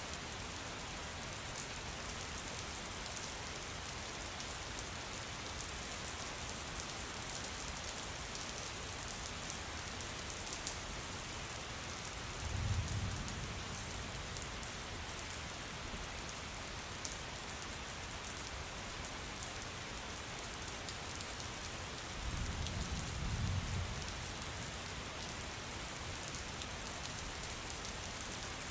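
Steady rain with fine, dense drop patter. Two low rumbles of distant thunder come and go, one about halfway through and one later on.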